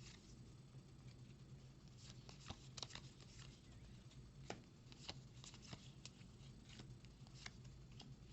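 Faint handling of trading cards: soft scattered clicks and slides as cards are flipped through and set down, a little busier in the middle.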